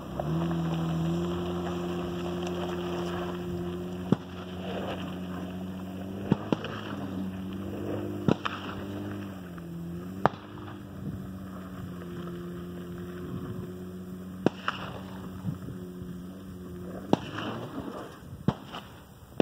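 Honda Ridgeline's V6 engine pulling the pickup up a steep dirt hill: a steady hum that rises in pitch about a second in, dips briefly near the middle, and grows fainter as the truck climbs away, with a few sharp clicks along the way.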